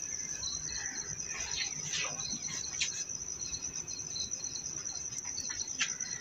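Crickets chirping steadily: one continuous high trill with a second, pulsing chirp repeating a few times a second beneath it.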